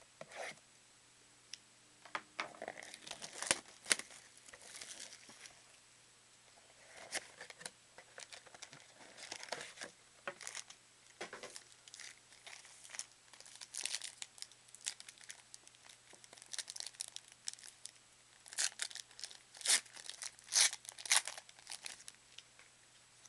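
Trading-card box wrapping and foil card packs being torn open and handled by hand: irregular crinkling, rustling and tearing with sharp little clicks, busiest and loudest in the last few seconds.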